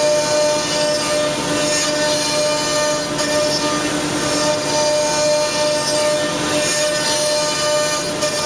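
CNC router spindle running and cutting wood: a steady whine held on several fixed pitches over a rough cutting hiss.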